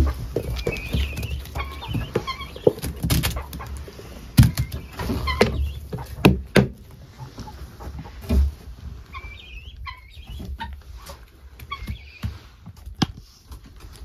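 A flock of hens clucking in short bursts of calls while they peck at apple scraps, with several sharp knocks and rustling in the first half.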